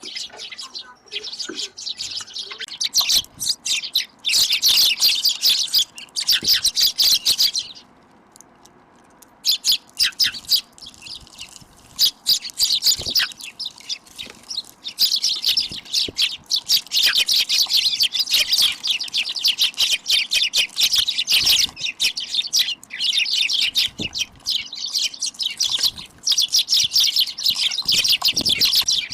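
A flock of small birds chirping busily, many quick, high chirps overlapping, with a brief lull about eight seconds in.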